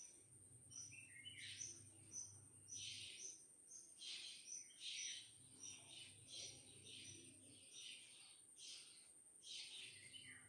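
Near silence with faint birds chirping repeatedly, over a steady thin high-pitched whine and a faint low hum.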